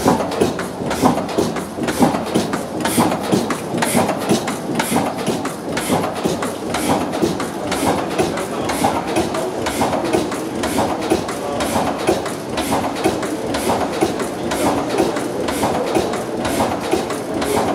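Deutz MKH 260 stationary diesel engine running steadily, an even, rhythmic clatter of firing and valve gear with the heavy flywheel turning.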